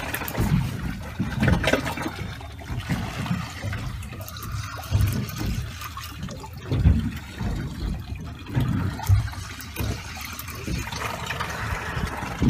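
Sea water sloshing and lapping against the side of a small boat, with uneven low buffeting throughout.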